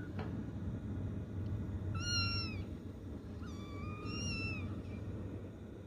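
Young kittens meowing: three high-pitched meows, the first about two seconds in and two more close together soon after, over a steady low background rumble.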